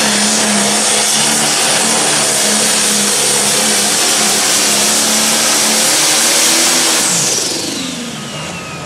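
Turbocharged diesel engine of a John Deere Pro Stock pulling tractor running flat out under load while dragging the weight sled. About seven seconds in it is shut off: the engine pitch falls and a high turbo whine winds down.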